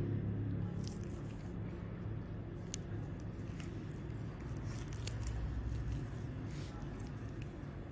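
Steady low background rumble with a few faint, scattered clicks.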